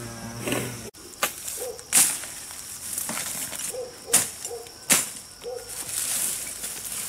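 A series of sharp knocks or chops at uneven intervals, five or so, the loudest about two and four seconds in.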